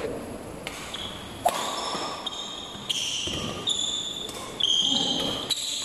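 Badminton rally: rackets striking the shuttlecock with four sharp hits, about one to one and a half seconds apart, and sneakers squeaking on the hall's court floor between them.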